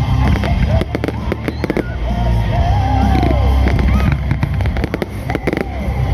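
Fireworks display: many sharp bangs and crackles from firework bursts, with whistling tones that glide up and down, over a steady low rumble.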